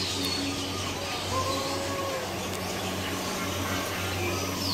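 Birds chirping in an aviary: a few short, high, falling notes near the start and again near the end, with some softer gliding calls in between, over a steady low hum.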